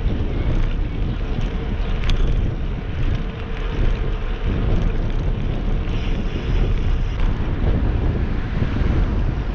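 Wind buffeting the microphone of a GoPro action camera on a moving bicycle, a steady low rumble mixed with road noise, with one sharp tick about two seconds in.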